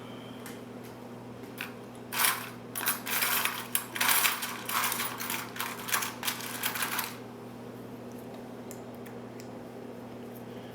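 Rapid metallic clicking and scraping of lock picking tools worked in the keyway of a pin-tumbler mortise cylinder, starting about two seconds in and stopping about five seconds later.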